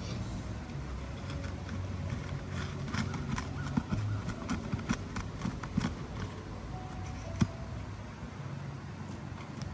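Irregular clicks, taps and a few sharper knocks of hand work on asphalt roof shingles, over a steady low hum.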